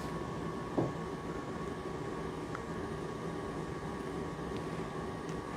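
Dreame L20 Ultra's docking station running quietly as it starts washing the mop pads: a low steady hum with a faint whine and one light knock about a second in.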